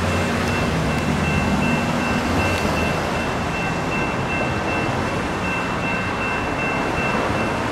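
Light rail train passing over a road crossing, a steady rush of wheel and track noise with a low rumble that eases off about two and a half seconds in. Under it the crossing's electronic bell rings on steadily.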